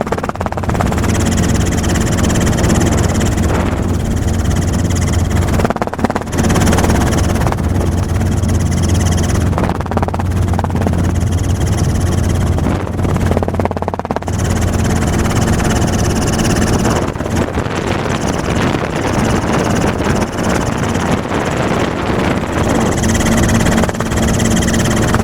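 Helicopter engine and rotor running steadily, heard from aboard, with two brief dips in the noise.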